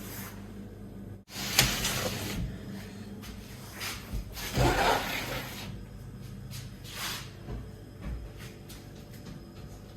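Handling noises at a meat freezer: a sharp knock about a second and a half in, then irregular bumps and rustling as the door and stored meat are moved, over a steady low hum.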